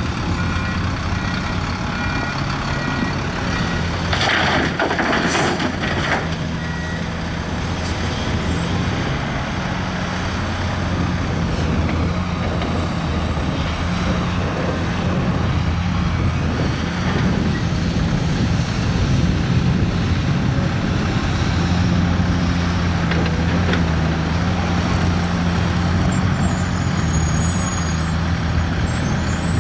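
Heavy diesel engines of an excavator and dump trucks running steadily at work. A reversing alarm beeps over the first several seconds, and a two-second rush of noise comes about four seconds in.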